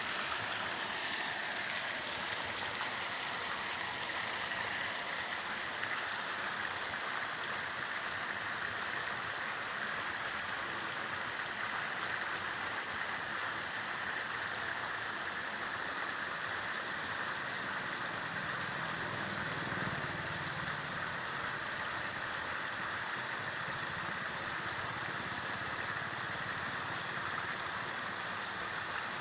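Steady hiss of rain falling on the surface of a canal, even throughout.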